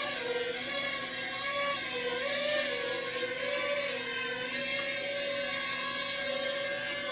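Small toy quadcopter's electric motors and propellers whirring steadily, their pitch wavering up and down as the motors keep adjusting speed in flight.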